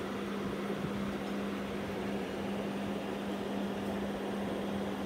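Steady hum of running aquarium equipment: one low, even tone over a constant hiss.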